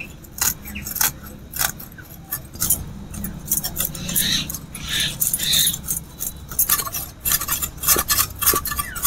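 A small snakehead (garai) fish being scraped and cleaned against the iron blade of a boti: a quick, irregular series of rasping scrapes and clicks, busier in the second half.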